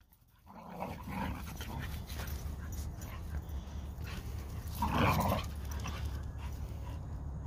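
Two dogs roughhousing, growling at each other in play, loudest about five seconds in.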